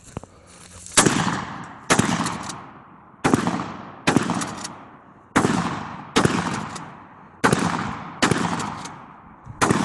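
DP-12 double-barrel 12-gauge bullpup pump shotgun firing light target loads: nine loud shots, mostly in quick pairs about a second apart, each followed by a fading echo.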